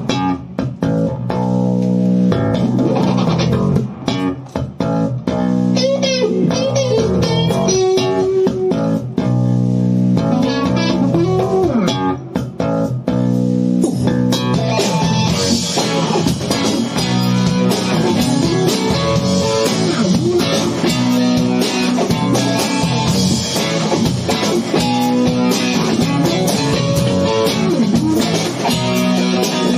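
Live rock band playing an instrumental passage on electric guitar, bass guitar and drum kit, with bending guitar lines over the bass. About halfway through, the sound fills out and brightens at the top.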